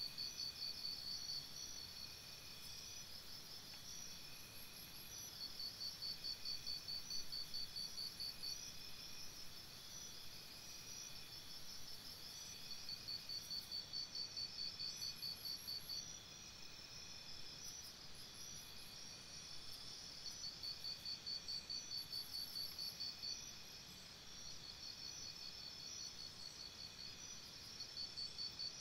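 Crickets chirping in rapid pulsing trains that last a few seconds each and keep recurring, with fainter, higher-pitched chirps now and then.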